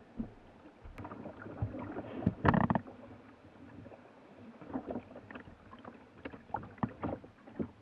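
Sea water splashing and slapping against a kayak's bow in choppy swell near rocks. There is a loud splash about two and a half seconds in, then scattered smaller slaps.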